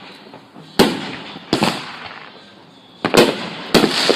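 Fireworks going off: four sharp bangs at uneven intervals, two in the first two seconds and two close together near the end, each fading away after the blast.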